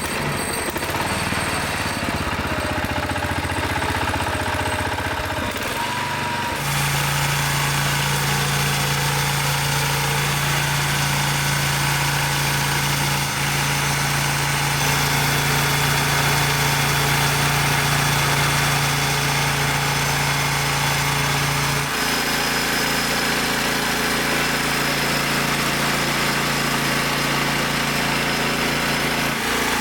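Homemade engine-driven band sawmill running steadily and loud, its steady low hum changing pitch about a fifth of the way in and again about three quarters of the way through.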